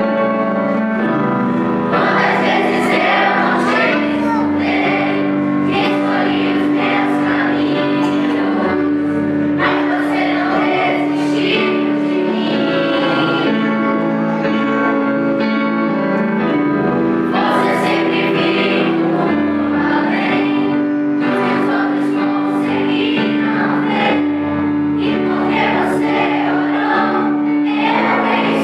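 Children's choir singing a song in phrases over steady held chords from a keyboard, with an acoustic guitar.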